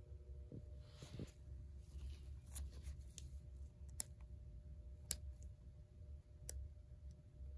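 Soft rustle of plush fabric about a second in, then three sharp clicks spread over a few seconds as fingers work at the plastic battery compartment and slide switch inside a plush walking talking toy dog.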